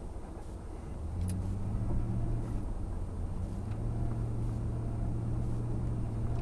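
Ford 5.0-litre (302) V8 in a 1990 F-150 pickup pulling up to a steady, higher engine note about a second in and holding it.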